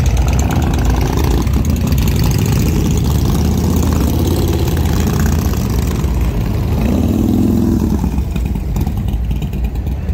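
Car and motorcycle engines idling and revving, a deep steady rumble with engine notes that rise and fall, loudest about seven seconds in.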